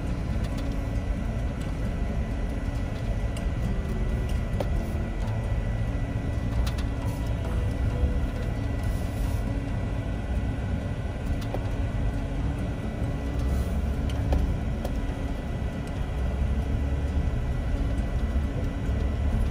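Steady low rumble of a vehicle driving slowly on a dirt road, heard from inside the cab: engine and tyres on dirt and gravel.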